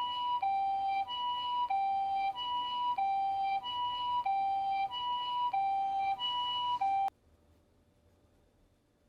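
Japanese ambulance two-tone siren alternating steadily between a high and a low note, each held about two-thirds of a second. It cuts off abruptly about seven seconds in, leaving only a faint hum.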